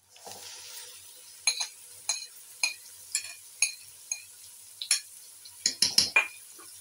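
Marinated minced mutton dropping into hot oil and onions in an aluminium pressure cooker with a soft sizzle. A metal spoon then scrapes and taps the glass bowl about twice a second, and there are a few louder clanks of the spoon against the pot near the end.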